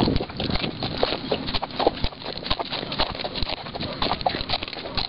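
Horses' hooves striking dry, stony desert ground: a quick, uneven run of hoofbeats from horses walking along together.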